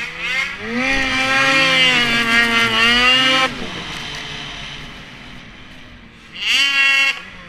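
Ski-Doo 600 RS snowmobile's two-stroke engine revving under throttle, its pitch climbing for a few seconds and then dropping away sharply as the throttle is let off. After a quieter stretch, a second short burst of revving comes near the end.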